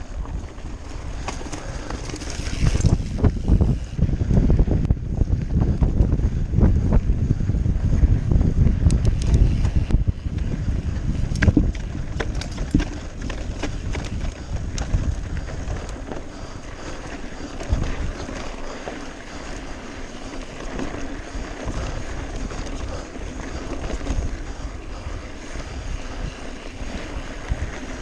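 Wind rushing over the microphone and a mountain bike's tyres rumbling over rocky dirt singletrack on a descent, with scattered knocks and rattles as the bike hits stones. The rumble is heaviest through the first half and eases later on.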